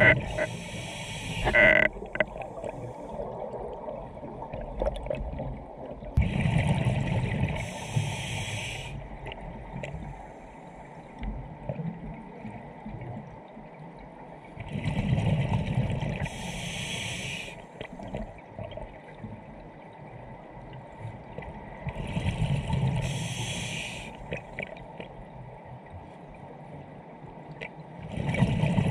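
Scuba diver breathing through a regulator, heard underwater: a rush of exhaled bubbles about every seven to eight seconds, each lasting two to three seconds, with quieter gaps between breaths.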